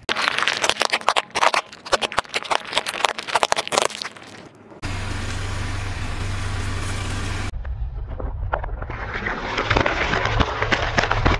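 Objects crushed under a slowly rolling car tyre: dense crackling and crunching for the first few seconds, then a steady low rumble of the car for a few seconds, then more crackling near the end as the tyre rolls onto a row of eggs.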